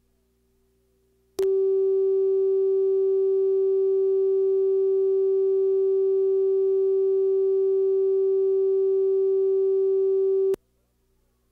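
A single steady electronic tone, one pure mid-pitched beep, switched on about a second and a half in, held unchanging for about nine seconds and cut off sharply near the end. It is the TV station's commercial-insert cue tone, marking the break point on the broadcast tape.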